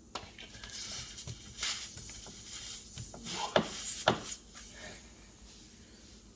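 Handling noise from tire plug kit tools and the glue tube being worked by hand: irregular rubbing and scraping with scattered clicks, and two sharper knocks a little past halfway.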